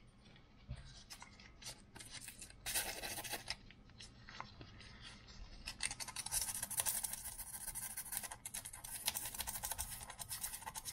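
Hand scraping on the anodized aluminium housing of a soldering station, trying to scratch the anodized coating off around a screw hole. A few light clicks come first, then a short burst of scraping about three seconds in. Rapid, steady scraping follows from about six seconds until near the end.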